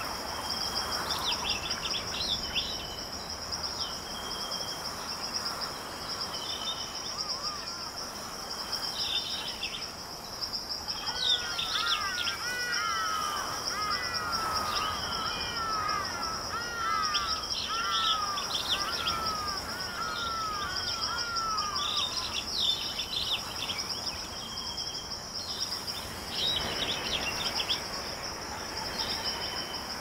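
Tropical forest ambience: a steady high-pitched insect trill with several birds calling over it. From about a third of the way in, one bird gives a long run of short rising-and-falling notes that stops about two-thirds of the way through.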